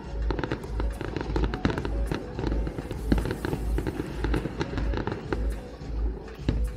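Aerial fireworks going off in quick succession, with many sharp bangs and crackles. Under them runs music with a steady bass beat about twice a second.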